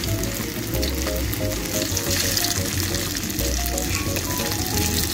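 Tofu and dried shrimp sizzling in hot oil in a steel wok, stirred with a wooden spatula.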